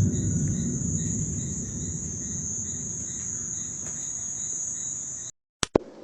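A steady high insect trill, with a fainter pulsing chirp beneath it, over a low rumble that slowly fades. It all cuts off abruptly about five seconds in, followed by two sharp clicks.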